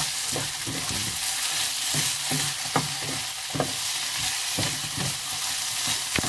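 Julienned potatoes sizzling in a nonstick frying pan while a wooden spatula stirs and tosses them, with a steady hiss and short scrapes and taps of the spatula on the pan about two or three times a second.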